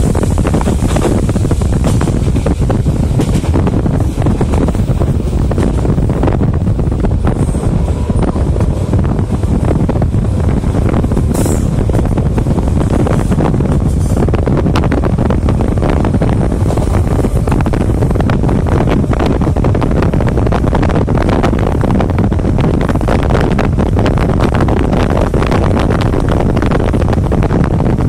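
Wind rushing at the microphone through an open window of a moving RER commuter train, over the steady rumble of the train running on the rails. The noise is loud and unbroken, with many small clicks.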